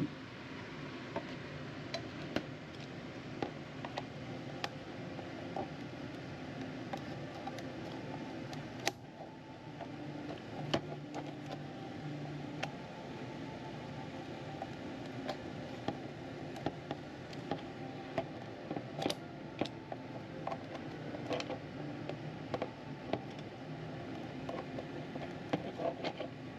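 Irregular small clicks and taps of Leopold FC660C Topre keyboard parts being handled and worked on, over a steady background hum.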